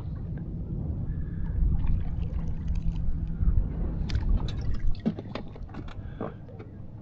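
Water lapping and dripping around a kayak, over a low steady rumble, with a few light clicks between about four and six seconds in.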